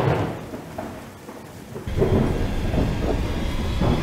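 Thunderclap with rain for a spooky intro: a sudden loud crack that dies away, then a heavier, steady low rumble comes in about two seconds in.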